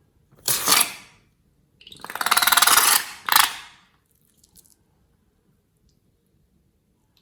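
Slime-making materials being handled, crackling and scraping in three bursts, the middle one the longest.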